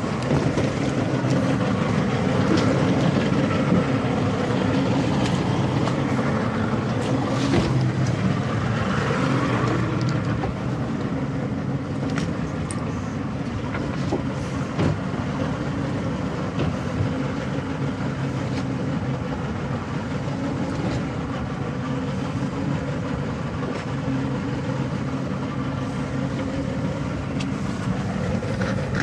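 Motorboat engine running steadily under way, over a continuous rush of wind and water. It is a little louder for the first ten seconds or so, then settles.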